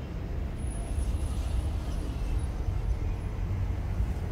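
Steady low rumble of a large aircraft's engines heard from far off, with no clear tones in it.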